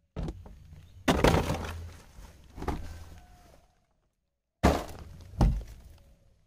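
About five sharp knocks and cracks from ice and fish being handled in a boat's ice-packed fish hold. The loudest comes about a second in and dies away over nearly a second.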